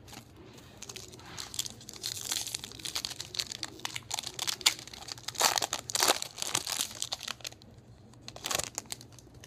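Foil wrapper of a Topps Finest trading-card pack being torn open and crinkled: irregular crackling that starts about a second in and stops shortly before the end.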